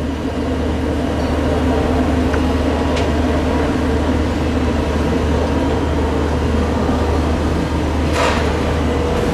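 The steam locomotive 241P17 stands with its engine sounding a steady low hum and rumble. Near the end come two sharp bursts of steam hiss about a second apart as it begins to pull away.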